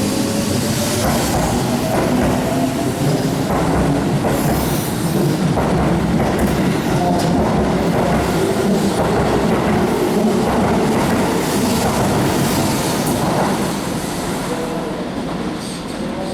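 Keihan electric train running through the station, its wheels clattering over the rail joints with some squeal and motor tones, dying away near the end.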